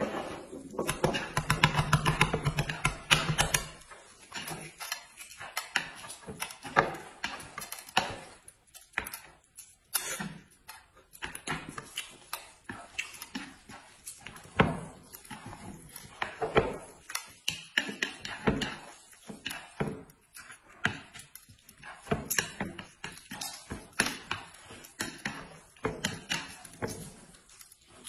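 Close-up eating sounds: boiled eggs being cracked and peeled and chopsticks clicking against a plate of noodles, a long string of small clicks and taps.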